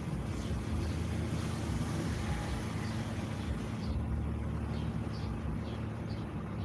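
A car's engine running in slow traffic, heard from inside the cabin as a steady low hum.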